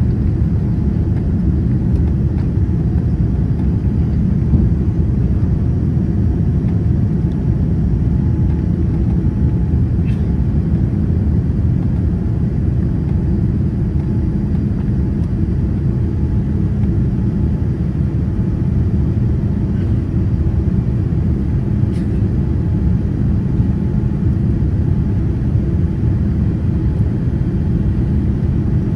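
Steady low rumble inside the cabin of a Boeing 787-8 climbing after takeoff: its GE GEnx engines at climb power together with airflow over the fuselage.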